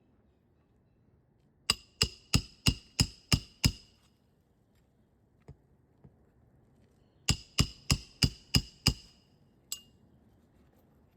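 Roofing hammer striking a metal roof snake to drive roofing nails under an asphalt shingle: two quick runs of seven ringing metallic blows, about three a second, then one more blow near the end.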